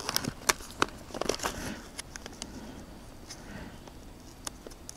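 Foil-lined freeze-dried meal pouch crinkling and crackling as it is handled and fingers work at its top to tear it open, in scattered sharp crackles that are busiest in the first two seconds and then thin out.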